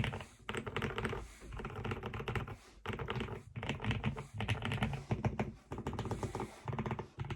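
Typing on a QK65 mechanical keyboard with lubed Zealios V2 tactile switches: quick runs of keystrokes in bursts, broken by brief pauses.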